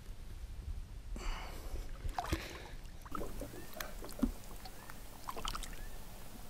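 Water splashing and dripping in small, scattered sounds at a boat's side as a largemouth bass is lowered into the lake by hand and released.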